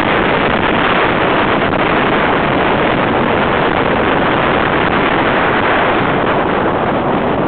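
Steady, loud wind rush on the microphone in an open-top Mazda Miata at speed, with the car's running and road noise mixed in underneath.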